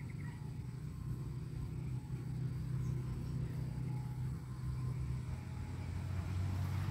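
A low, steady engine hum.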